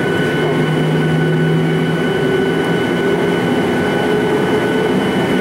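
Steady cabin noise inside a Boeing 737-800 whose CFM56 turbofans are running at idle before take-off: a steady high whine over a low hum.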